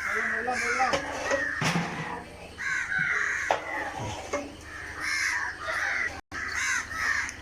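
Birds calling over and over in short, harsh cawing calls, with a few sharp knocks among them.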